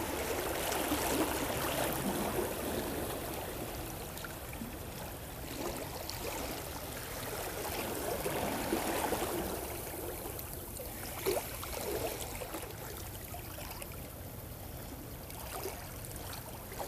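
Small waves lapping and washing against the stones of a seawall, swelling and fading every few seconds, with a couple of faint knocks about two-thirds of the way through.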